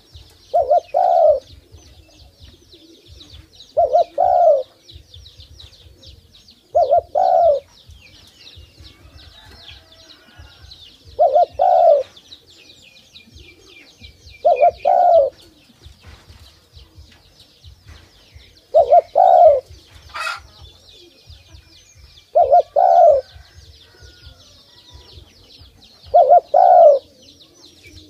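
Spotted dove cooing: eight loud two-part coos, evenly spaced about three and a half seconds apart. A steady high chirping runs behind them, and a single sharp click sounds about two-thirds of the way through.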